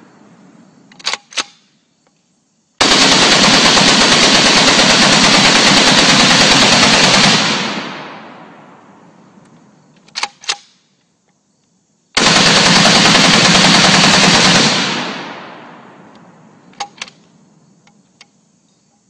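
Browning M1919 machine gun, rechambered for 7.62x54R and belt-fed from a Maxim 08/15 drum, firing two long bursts on full auto: the first lasts nearly five seconds, the second about two and a half. A few short sharp clicks come between the bursts.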